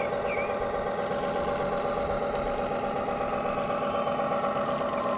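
Radio-controlled model tugboats under way, giving a steady engine-like drone with a fixed pitched hum, with a few faint high chirps now and then.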